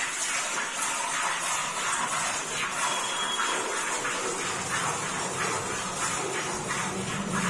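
Cow being milked by hand: streams of milk squirting into a steel bucket in a steady rhythm of squirts, about two or three a second.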